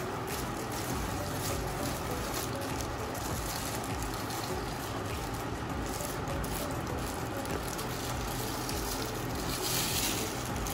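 Foam packaging and plastic wrap rustling as a boxed wireless microphone set is unpacked, with a louder rustle near the end as a plastic-wrapped microphone is pulled out.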